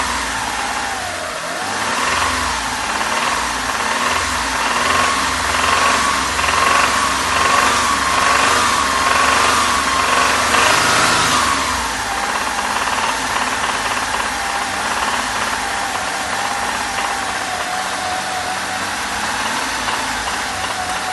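Hyundai Terracan's 3.5-litre V6 petrol engine held at raised revs with a knock, then settling to a lower steady speed about twelve seconds in and dropping back near the end. The knock goes away when the fuel feed to cylinder 4 is cut, pointing to a fault in that cylinder: a stuck hydraulic lifter, a rod bearing, a piston pin or a piston.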